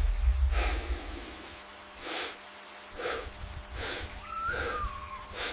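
Repeated short, breathy snorts, about one a second, with a faint short whistling glide between them near the end. A low deep note fades out in the first second.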